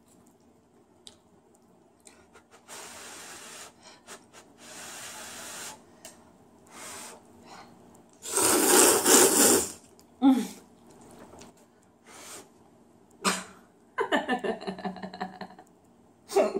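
Person slurping a mouthful of instant ramyun noodles, one loud slurp lasting about a second and a half near the middle, with softer breathy sounds before it. Near the end she laughs in quick pulses.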